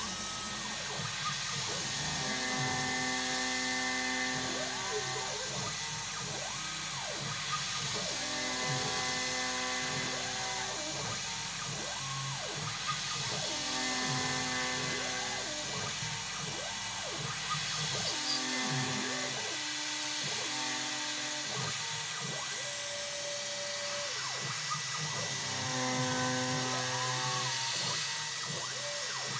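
Spindle of a homemade CNC mill running as a small end mill cuts aluminium on a slow pass around the part: a steady high-pitched whine and hiss, with tones that shift every few seconds as the cutter's path changes.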